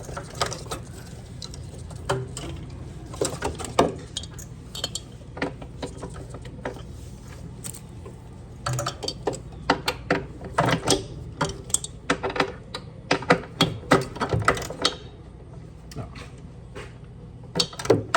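Metal hand tools clinking and tapping against metal parts in irregular sharp clicks, busier in the middle, over a steady low hum.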